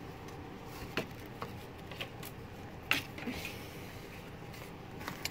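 Handling noise: a few light taps and paper-and-cardboard rustles as a stiff die-cut cardboard display and papers are moved, the sharpest tap about three seconds in, over a steady low room hum.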